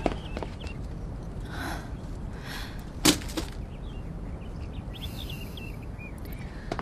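Steady low background noise with one sharp wooden knock about three seconds in, followed by a lighter one, as wooden boards are handled, and faint bird chirps near the end.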